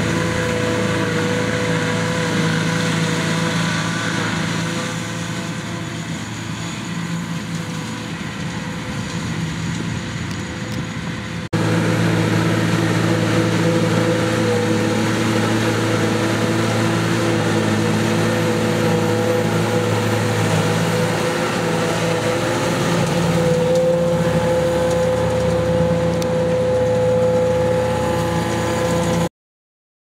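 New Holland T6070 tractor and the trailed JF1050 forage harvester it drives, running steadily while chopping grass and blowing it into a trailer, with a John Deere 6620 tractor running alongside. It is a continuous machine drone with several steady tones. The sound jumps louder about 11 seconds in and cuts off abruptly about a second before the end.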